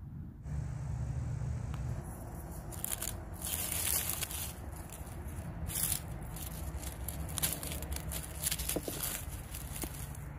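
Irregular rustling and crackling, as of dry forest litter and undergrowth being disturbed, starting about two and a half seconds in, over a low rumble on the microphone.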